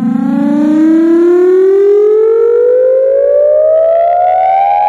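Siren-like tone in a DJ remix, played very loud through a large stack of horn-loaded DJ loudspeaker cabinets. It is one continuous pitch that climbs slowly and steadily.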